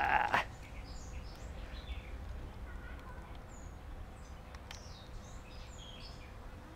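Small songbirds chirping and calling outdoors, many short chirps and quick glides scattered through, over a steady low rumble. A brief burst of handling noise right at the start is the loudest moment.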